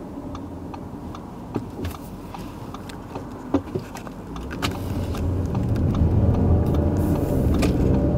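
Inside the cabin of an Audi Q7 plug-in hybrid: fairly quiet at a standstill with a few light clicks. About four seconds in the car pulls away and its running and road noise build up steadily.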